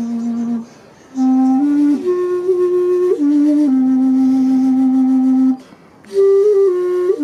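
A long Andean bamboo flute, blown at its end, playing a slow melody in low held notes. A long note, a short breath, a phrase that steps up and back down onto another long held note, then a second breath and a new phrase near the end.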